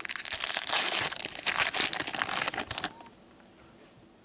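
Crinkling of a plastic-foil O-Pee-Chee hockey card pack wrapper being handled, a dense rapid crackle that stops about three seconds in.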